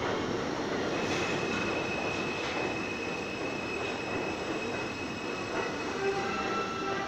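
R42 subway train rolling along the platform with a steady rumble of wheels on rail. A high wheel squeal starts about a second in and holds for about three seconds, and lower squeals come in near the end.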